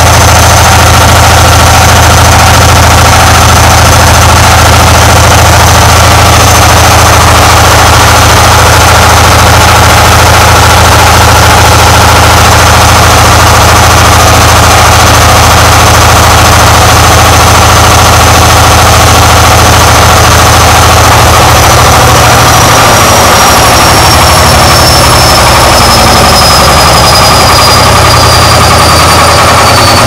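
Old Arçelik front-loading washing machine running loud, with a heavy steady rumble and a thin high whine. About two-thirds of the way through, the whine begins to slide down in pitch.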